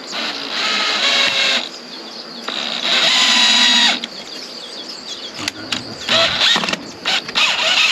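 Cordless drill driving screws into the wooden frame of a chicken door: the motor runs at a steady pitch in two bursts of about a second and a half each, in the first half.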